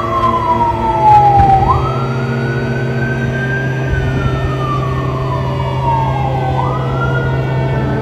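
A siren wailing: its pitch slides slowly down and then jumps quickly back up, twice, over a steady low hum.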